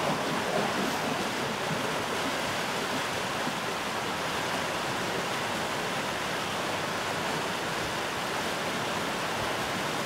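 River rapids: white water rushing steadily, an even, unbroken noise.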